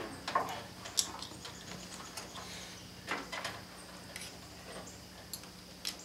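Small clicks and ticks of wire ring terminals and a metal starter solenoid being handled as it is wired up, a few sharp ones scattered through, over a faint steady hum.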